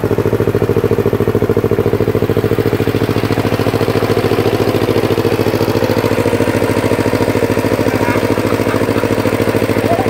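Two-wheel power tiller's engine running steadily with an even, rapid beat as it pulls the cage wheels through flooded paddy mud while ploughing.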